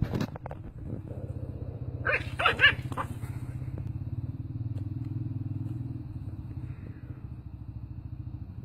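Puppy growling low and continuously with a rapid rattling pulse, breaking into a few sharp yaps about two seconds in as it faces down lion cubs.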